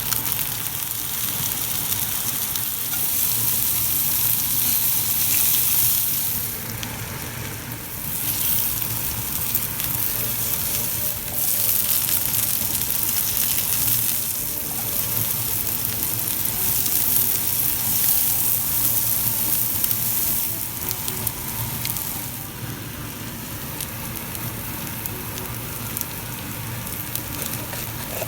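Seafood fried rice ingredients sizzling and frying in a hot pan while being stirred. The sizzle swells and dips a few times over a low steady hum.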